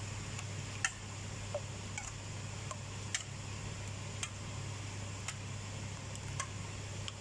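Wire whisk beating a large pot of raw eggs, its wires clicking against the metal pot about once a second, over a steady low hum.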